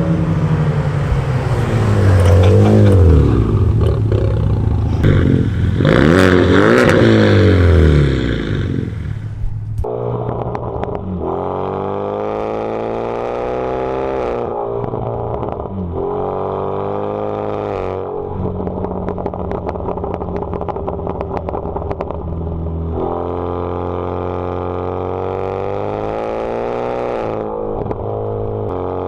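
Hyundai Veloster Turbo's turbocharged 1.6-litre four-cylinder running through a catless downpipe. It is revved twice in quick blips, then accelerates hard, the revs climbing steadily and dropping at each gear change, several times over.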